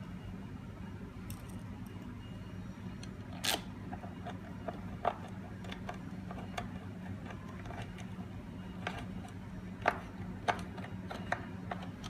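Scattered small clicks and taps of screws and a screwdriver being handled while the lock's back panel is screwed in, over a steady low hum.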